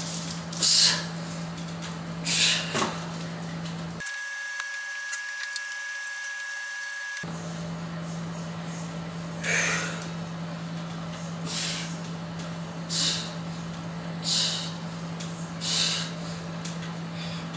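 Short, forceful breath exhales, one with each rep of hanging leg raises, coming about every one and a half seconds in the second half, over a steady low hum. The sound cuts out almost completely for about three seconds in the middle.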